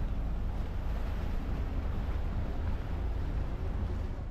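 Motorboat under way: a steady low engine rumble mixed with rushing water and wind on the microphone.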